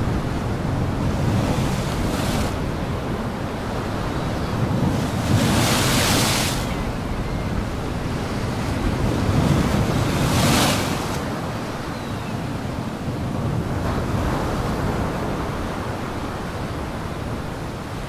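Storm surf on Lake Michigan: waves breaking in repeated rushes over a steady wind. The two biggest surges come about six and ten seconds in.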